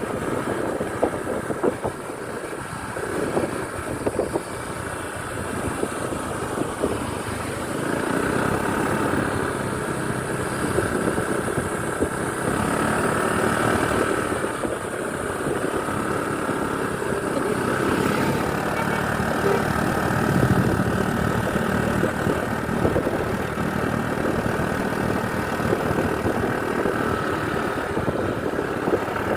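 Bus engine running steadily, with continuous vehicle noise.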